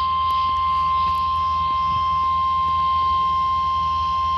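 NOAA Weather Radio warning alarm tone: one long, steady tone of about 1050 Hz, received over a weather radio with a low hum and hiss under it. The tone signals that a National Weather Service warning message is about to be broadcast.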